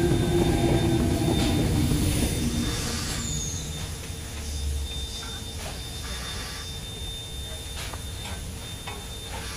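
Double-deck electric suburban train running away on the adjacent track: its rumble and motor tone fade over the first three seconds. After that, quieter rail-yard sound with a few scattered knocks and clanks.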